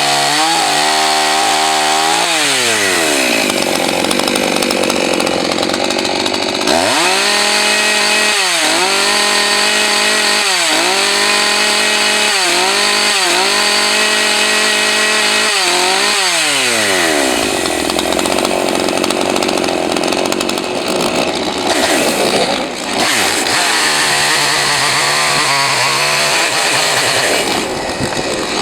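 Husqvarna 543 XPG two-stroke chainsaw running loud, its engine speed rising and falling over and over, then held at high throttle in the second half. The carburetor is one the owner thinks is tuned a little low on the high-speed side.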